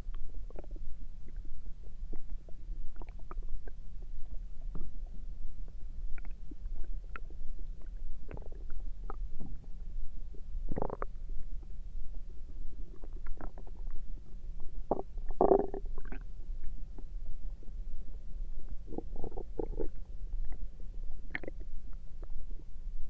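Human stomach gurgling: many small scattered pops and squeaks over a steady low rumble, with a few longer, louder gurgles. The loudest comes a little past the middle.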